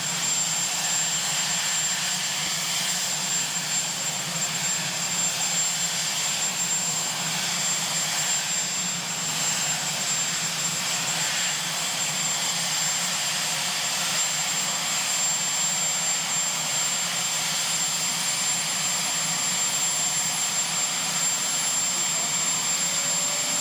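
Sikorsky Sea King helicopter's twin turbine engines running on the ground with the rotor turning, a steady roar under a high, constant whine. In the second half a second whine slowly rises in pitch as the engines spool up.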